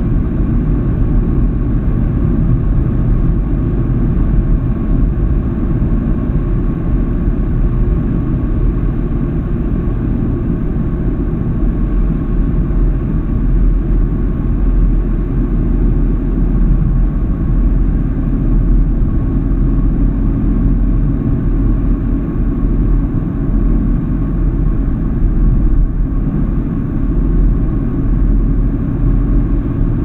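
A car cruising at steady road speed, heard from inside the cabin: a steady low rumble of tyre and engine noise.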